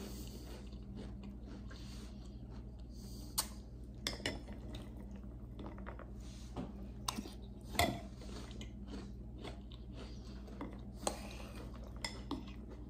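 Metal spoon clinking and scraping against a clear bowl of cereal and milk, with several sharp clinks spread through, and quiet chewing between scoops.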